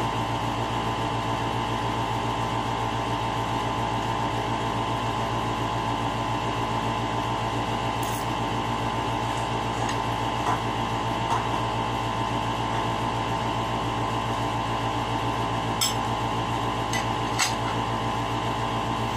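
Steady mechanical hum of a running appliance motor, made of many steady tones, with a few short clicks from dishes and a plastic water bottle being handled.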